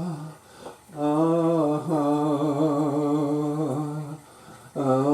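A man's voice singing a long, wavering wordless 'ah', unaccompanied. It pauses briefly near the start and again before a new note begins near the end.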